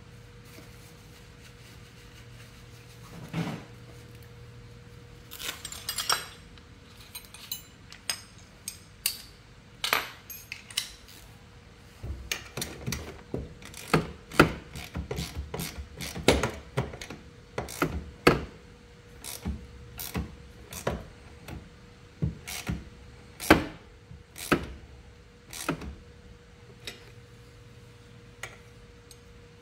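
Irregular metallic clinks and knocks of hand tools being handled and set against metal, coming thick and fast from about halfway through, over a faint steady hum.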